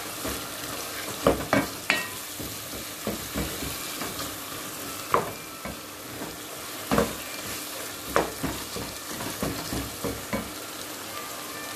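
Lamb pieces in berbere-spiced onion sauce sizzling steadily as they fry in a pot. A wooden spoon stirs them, knocking and scraping against the pot now and then. This is the dry-frying stage, with only drops of water added so the berbere does not burn.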